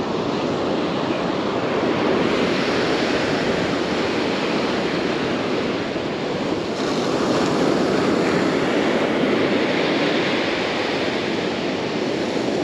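Ocean surf washing onto the beach, a steady rush of breaking waves that swells and eases as sets come in, with some wind on the microphone.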